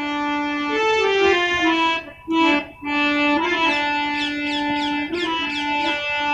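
Indian hand-pumped harmonium playing a melody in held, reedy notes, breaking off briefly twice a little after two seconds. Quick high chirps repeat over it in the second half.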